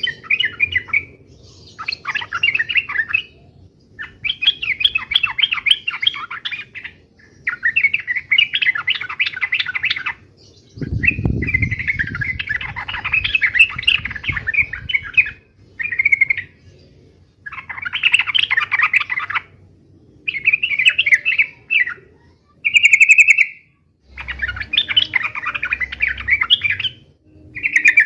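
Yellow-vented bulbul (trucukan) calling in repeated bursts of fast, bubbling chatter, each a second or two long with short pauses between. This is the lively fighting-style song used to set off a caged bird into answering.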